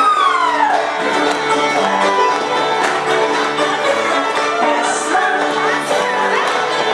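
Bluegrass-style string band music for dancing, fiddle and banjo playing a lively tune, with a high note sliding down right at the start.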